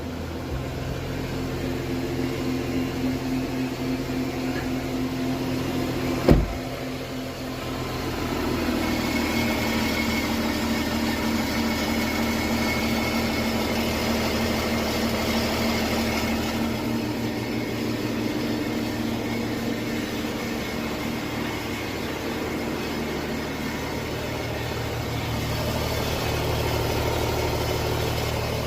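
A 2017 Porsche Cayenne 3.0 V6 diesel engine runs steadily with the metallic grinding noise that seems to come from underneath, somewhere between the engine and the gearbox. A single sharp knock about six seconds in is the loudest moment, and the engine's tone shifts about two seconds after it, then holds steady.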